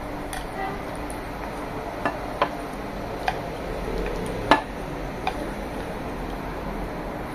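Wooden spoon knocking and scraping against a ceramic serving bowl as curry is spooned out onto a plate of rice: a handful of sharp clinks, the loudest a little past halfway.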